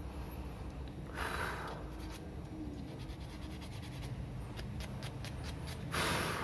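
Sandpaper rubbing on a small hand-made action-figure ball joint, sanding it round: a scratchy stroke about a second in and a louder one near the end, with faint light ticks between.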